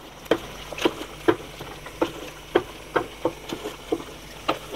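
Wooden spoon stirring chunks of bone-in beef through a thick, wet masala in an aluminium pot, giving irregular wet slaps and knocks about twice a second over a steady low hiss.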